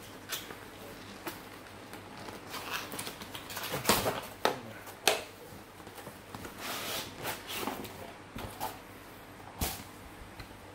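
A stiff cardboard product box being worked open by hand: rustling and scraping with scattered sharp knocks, the loudest about four and five seconds in.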